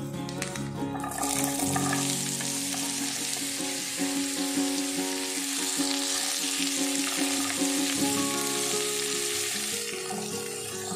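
Diced bottle gourd (lauki) sizzling in hot oil with cumin seeds and dried red chillies in a nonstick wok, stirred with a silicone spatula. The sizzle starts up about a second in, as the cubes go into the oil, and stays steady.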